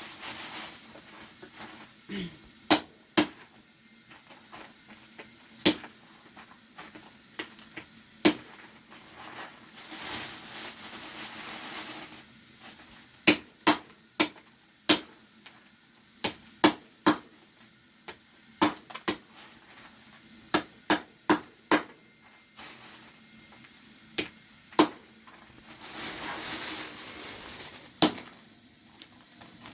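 Sharp, irregular knocks or taps, some coming in quick pairs and clusters. Two stretches of soft hiss come through about ten seconds in and again near the end.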